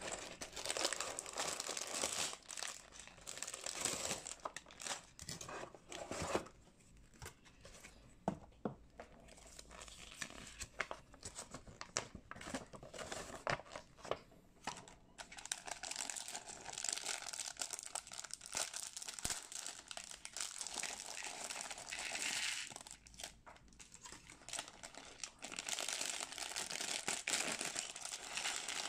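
Crinkling and rustling of clear plastic parts bags and a paper instruction sheet being handled, with bags torn open. Small plastic building bricks click and clatter out near the end.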